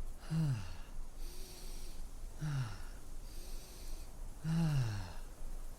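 A man taking slow, deep breaths. Each of his three breaths out is a voiced sigh that falls in pitch, and airy breaths in come between them, as if showing someone how to calm down.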